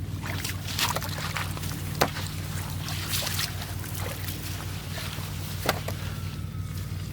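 Water splashing and sloshing over a steady low hum, with two sharp knocks, one about two seconds in and one near six seconds.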